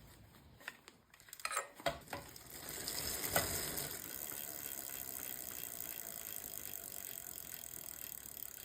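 Bicycle drivetrain being worked after a one-piece crank bearing replacement: a few clicks and knocks, then a steady whirring from about two and a half seconds in.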